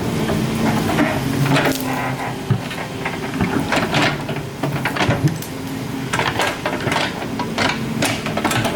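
Excavator engine running steadily, with a string of sharp knocks and clanks from the machine at work.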